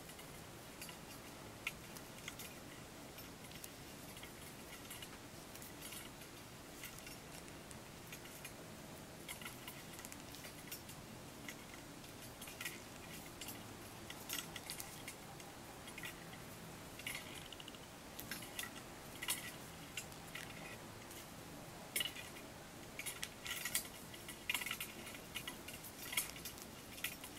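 Plastic lanyard lace (gimp) being woven by hand into a 3x3 stitch: faint, irregular clicks and crinkles as the strands are folded over one another and pulled tight, over a low hiss. The clicks come more often and louder in the second half.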